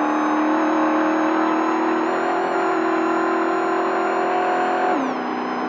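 Desert race truck's engine, heard from inside the cab, running hard at a steady high pitch down a straight. The pitch steps up slightly about two seconds in, then drops quickly near the end.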